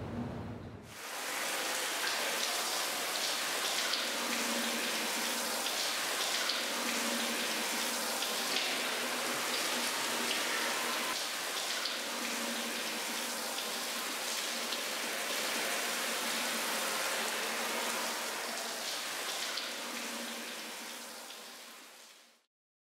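Shower spray running steadily and splashing onto a person and a tiled floor. It starts about a second in and fades out near the end.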